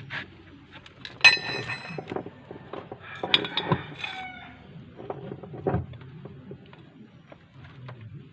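Metal tools and parts clinking and knocking, with a loud metallic clang about a second in that rings on, and a second ringing clatter of metal around three and a half seconds in.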